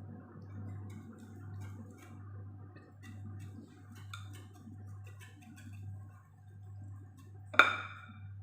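Light, irregular clicking of a utensil against a mixing bowl as pancake batter is stirred, then one loud clank with a short ring near the end.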